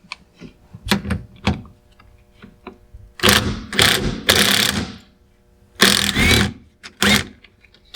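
Hand socket ratchet loosening the steering wheel's centre bolt: a few single clicks, then several loud strokes of rapid pawl clicking between about three and seven seconds in.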